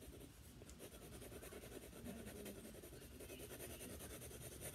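Faint, steady scratching of a pencil shading on paper as tree branches in a drawing are coloured in.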